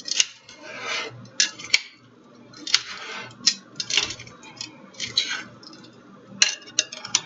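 Metal utensil tossing chickpea salad in a ceramic dish: irregular clinks and scrapes of metal against the dish as the beans are turned over.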